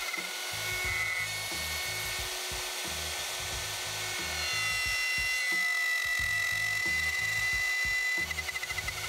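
Handheld plunge router with a dovetail bit running and cutting wood as it is guided along a dovetail jig's template: a steady high whine that grows louder from about halfway through. A background music beat runs underneath.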